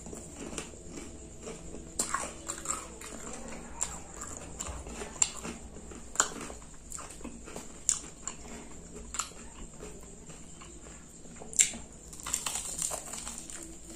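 Close-up mouth sounds of eating sauce-covered fried chicken: chewing and wet lip-smacking in irregular clicks, with a louder bite near the end.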